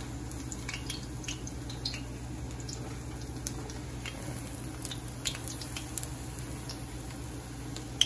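Battered banana fritters frying in oil in a metal wok, sizzling with scattered small pops and crackles. One sharp tap near the end, over a steady low hum.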